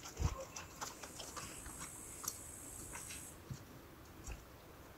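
Faint scattered clicks and small knocks of hands fitting an electronic ice-fishing rod onto a wooden bar, with a soft thump about a quarter second in.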